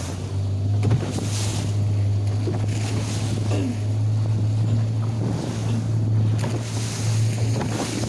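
A small boat's engine runs steadily, its note stepping up slightly at the start. Wind buffets the microphone and waves and spray splash against the hull a few times.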